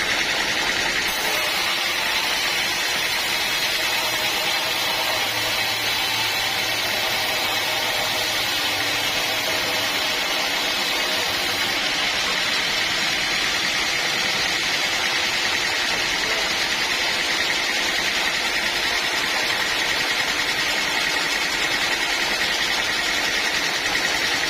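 Sawmill machinery running steadily with an even, unbroken noise, sawing teak logs.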